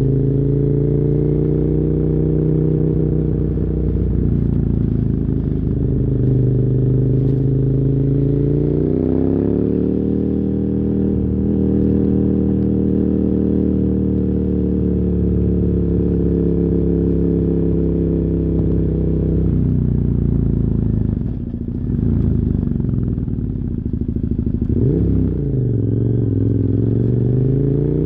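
2007 KTM 990 Super Duke R's V-twin, through dual Yoshimura carbon exhausts, pulling steadily under way. Its pitch rises about a third in as the throttle opens and holds, then drops off about two-thirds in. Near the end there is a quick rise and fall of revs before it settles lower.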